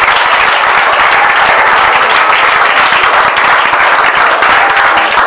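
A congregation applauding: many hands clapping in a loud, dense, steady wash.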